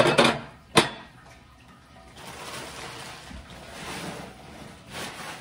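Milk glass being unpacked and handled: a short scrape and a sharp clink of glass just under a second in, then a few seconds of steady rustling.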